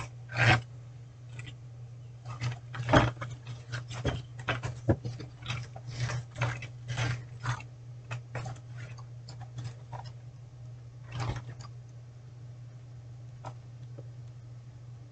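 A cardboard kit box and its tray of brass fittings being handled: a string of taps, knocks and rustles, busiest in the first two-thirds and thinning out near the end, over a steady low hum.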